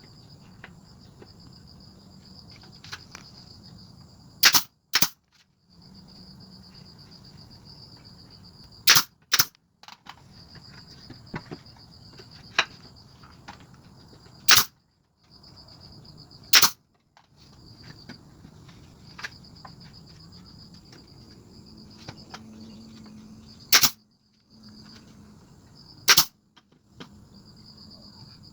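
About eight sharp, loud cracks from woodworking on pallet wood, some in pairs, a few seconds apart, over a steady low hum and a high whine.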